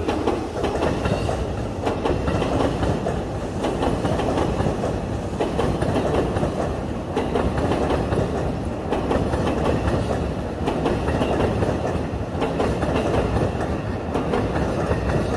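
Electric train running on the rails, a steady rumble with the clickety-clack of its wheels over the rail joints.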